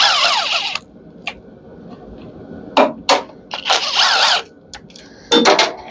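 A power drill-driver runs in two short bursts, its pitch wavering up and down, as it works fasteners out of a range hood motor, with a few sharp knocks between the bursts.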